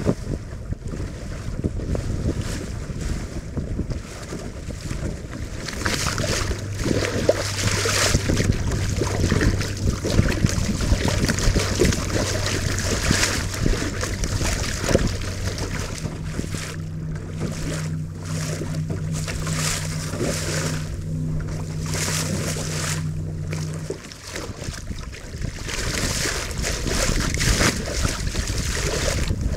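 Water rushing and splashing at the bow of a Melonseed sailing skiff as it drives through choppy water under sail, with wind buffeting the microphone in gusts. A low steady hum comes in about six seconds in and cuts off suddenly around twenty-four seconds.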